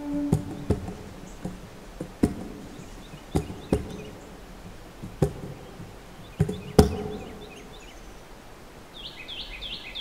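About ten sharp knocks at irregular spacing, some with a short ringing tone, over a faint background hiss. Near the end a bird gives a quick run of high chirps that fall in pitch.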